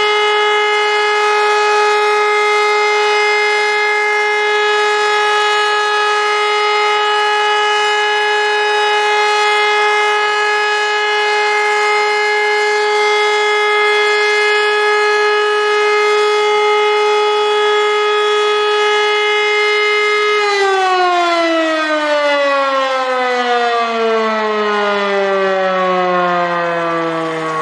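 E57 electric motor siren holding a steady, unwavering tone, the continuous tone of the all-clear signal. About 20 seconds in it cuts out and the pitch falls away steadily as the rotor spins down.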